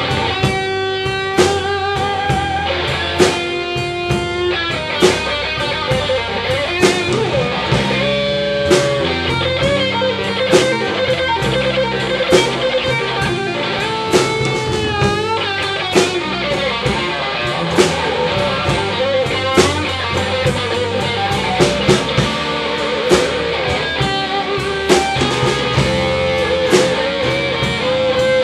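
Live slow blues on electric and amplified acoustic guitars with drums, an instrumental passage with no singing. A guitar plays a lead line of held, bent notes with vibrato over the chords, and a drum hit lands about once a second.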